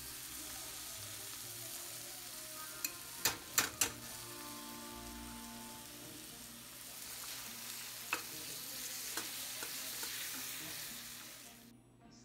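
Sliced mushrooms and zucchini sizzling in a stainless-steel skillet while a wooden spatula stirs them, with a quick run of about four sharp knocks of the spatula against the pan a few seconds in and a couple of lighter ones later. The sizzle stops suddenly near the end.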